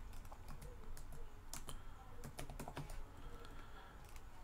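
Computer keyboard being typed on in short, irregular runs of faint keystroke clicks.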